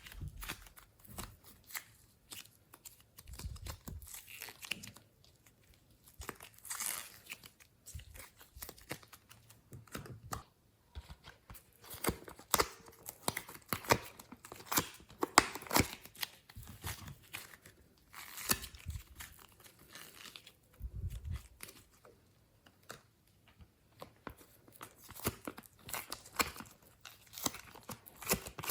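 Glossy slime being squished and stretched by hand, making irregular sticky crackles and pops, with a few soft low thuds.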